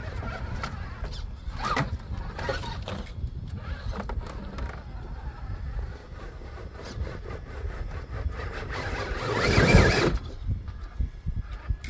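Radio-controlled rock crawler climbing rock: its electric drive whirring, with tyres scrabbling and scraping for grip on cold, slippery rock. A steady low rumble runs underneath, and about nine and a half seconds in a louder burst of noise stands out.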